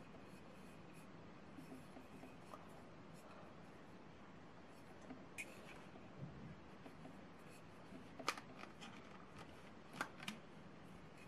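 Quiet handling of a plastic-lidded thermos bottle: faint rubbing as it is turned in the hands, with a few light clicks, the sharpest about eight seconds in and two more around ten seconds.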